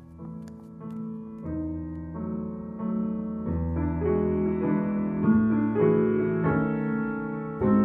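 Piano music: a slow passage of held notes and chords that grows steadily louder.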